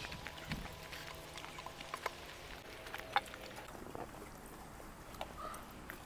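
Quiet eating by hand from steel plates: scattered faint clicks and scrapes of fingers and rice against the metal, the plainest about two and three seconds in.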